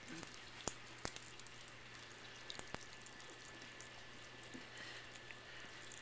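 Pop Rocks candy crackling in faint, irregular little pops and clicks as a cat licks the pieces, a few louder snaps among them.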